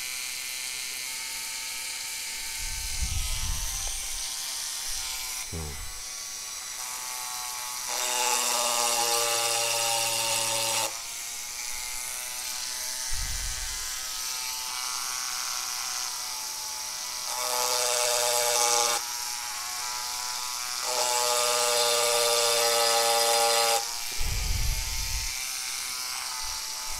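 Rotary engraving tool with a round-tip diamond burr whining steadily while it grinds lines into the back of a mirror. The whine grows louder for a few seconds at a time, about eight, seventeen and twenty-one seconds in, with a few soft low thumps between.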